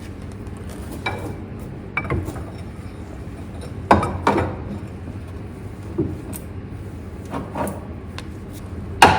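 A metal tool knocking and clinking against front-suspension parts in a series of irregular sharp metal knocks, loudest near the end, as it is tried for fit under the car.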